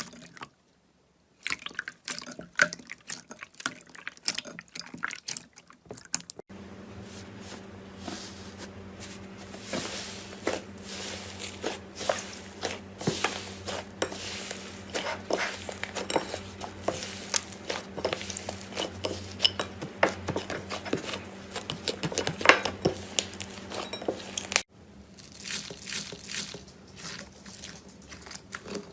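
Slime being squished and poked by hand, making dense wet clicks and pops. Several short clips are cut together, with a brief drop to silence near the start, and a low steady hum sits under the clicking in the longest clip.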